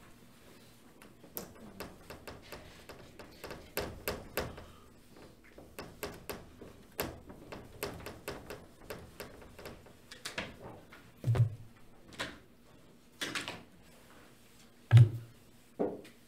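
Irregular light clicks and taps, with a few duller, louder knocks in the last few seconds. This is typical of hands working the computer's pen or erase tools on the slide.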